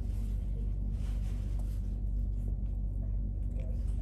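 Steady low rumble of room background noise, with only a few faint ticks above it.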